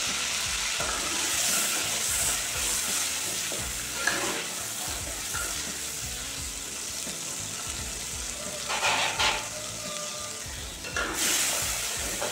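Hot oil sizzling in a clay cooking pot as it is stirred with a metal spatula, with a few louder scrapes of the spatula against the pot near the middle and end.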